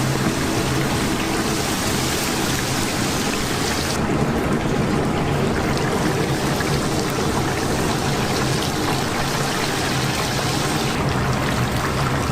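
Chicken deep-frying in a large vat of oil, giving a dense, steady sizzle over a constant low machine hum.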